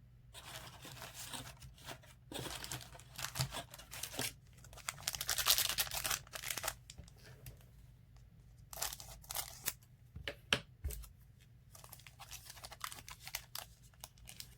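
Crinkling and tearing of a trading-card pack's foil wrapper, in several bursts of rustling, with cards being handled.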